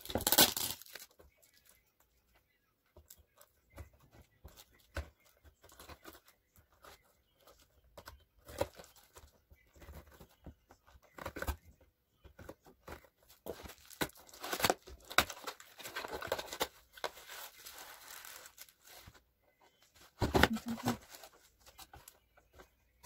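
Packaging being opened by hand: a plastic mailer bag crinkling and tearing, then a cardboard box being pulled open and handled. The rustles and taps come and go, with a louder stretch of rustling in the middle and another burst near the end.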